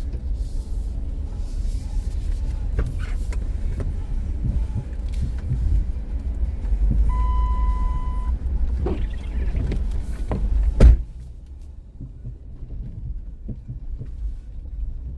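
Inside a 2005 Dodge Caravan minivan pushing through deep snow: steady low rumble of the van with scattered knocks and bumps, and a single steady beep lasting about a second around the middle. A loud thump comes near the end, after which the rumble drops sharply as the van comes to rest.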